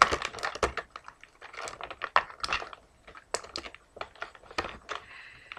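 Irregular clicks and crinkles of an action figure's plastic packaging and twist ties being handled and pulled at while the figure is freed.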